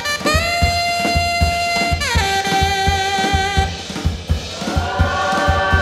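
Live jazz: a tenor saxophone holds long notes, sliding up into one and bending down off it about two seconds in, over a steady drum-kit beat. Near the end, sampled gospel singing begins to swell in.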